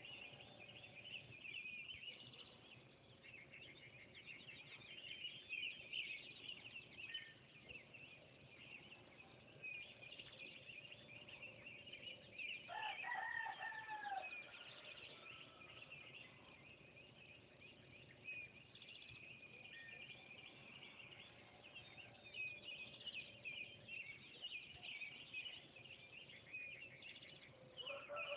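Faint dawn chorus of crickets chirping and songbirds singing without a break. A rooster crows once, about halfway through.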